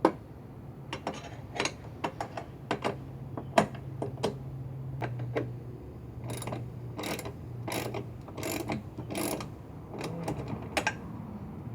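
Socket ratchet wrench clicking as the side step's mounting bolts are tightened, in irregular clicks and then a run of quick strokes about 0.7 s apart from about six seconds in, over a low steady hum.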